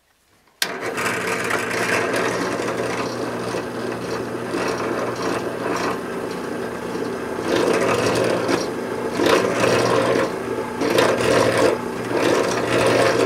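Drill press running with its bit boring a deep hole into a white metal model machine gun receiver, lubricated with WD-40. It starts suddenly about half a second in: a steady motor hum under a scraping cutting noise that grows louder in places as the bit is fed in.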